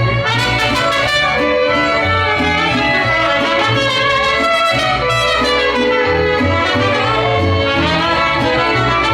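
Mariachi band playing an instrumental introduction, trumpets carrying the melody over a bass line, with no singing yet.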